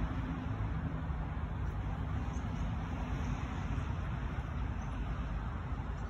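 Steady outdoor background rush of distant road traffic, with a low engine hum fading out just after the start and a few faint high chirps.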